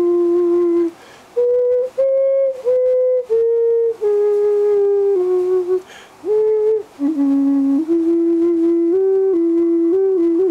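Terracotta vessel flute played: a slow melody of held notes stepping up and down in a low register, broken by brief pauses between phrases.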